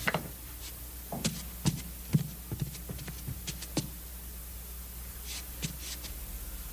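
A series of irregular light knocks and clicks over a steady low hum, the loudest about two seconds in and a small cluster near the end.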